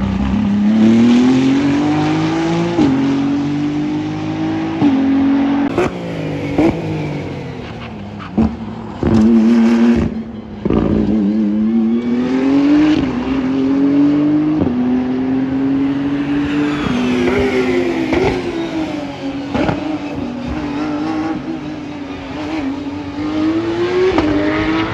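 Racing car engines on track, one car's note climbing through the gears with a sharp drop at each upshift, every two seconds or so. Partway through, the pitch steps down in quick jumps as it downshifts under braking, then climbs again. Other cars pass close by.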